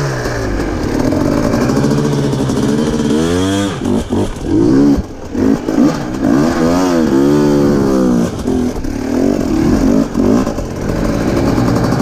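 Dirt bike engine revving up and down again and again under short throttle blips, the stop-and-go throttle work of a bike being ridden through rough ground in hard enduro riding.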